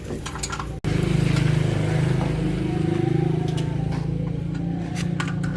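Car engine running steadily with a low hum, starting after a sudden break about a second in.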